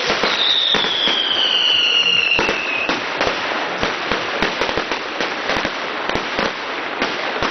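Display fireworks going off. A high whistle falls slowly in pitch over the first few seconds, then a dense run of rapid crackling pops and bangs follows.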